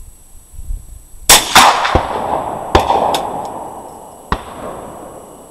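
.22 rimfire rifle shots: two sharp reports in quick succession about a second in, echoing and dying away over the next few seconds, with a few fainter cracks after them. The round, old Sinoxid ammunition, is clocked by the chronograph at 1254 feet per second.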